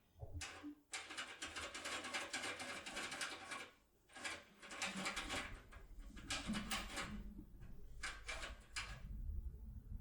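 Rapid metallic clicking and rattling from a foil opening tool being rocked back and forth under force in an ISEO R500 cylinder. It comes in several bursts with brief pauses.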